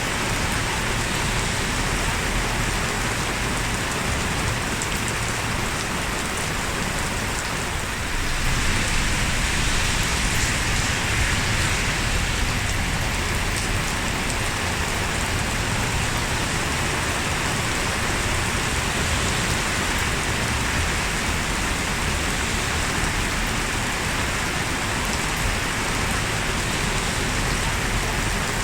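Steady heavy rain falling, growing slightly louder about eight seconds in.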